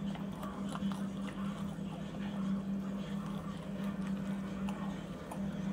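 A steady low hum, with faint scattered light clicks of chopsticks against takeout containers.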